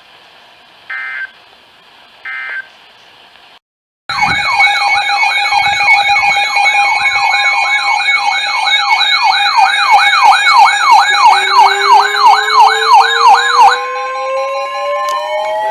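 Faint hiss with two short beeps, then after a moment of silence a siren cuts in loudly, warbling in a fast yelp of about two and a half sweeps a second. Near the end the yelp stops while a second siren tone keeps winding up in pitch.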